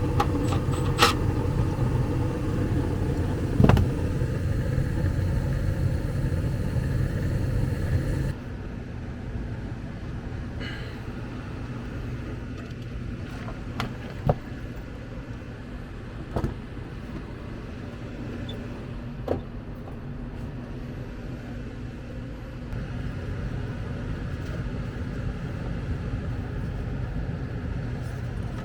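ICP gas furnace running with its burners lit: a steady rumble of flame and inducer fan, which drops abruptly about eight seconds in to a quieter hum. A few sharp clicks and taps stand out over it.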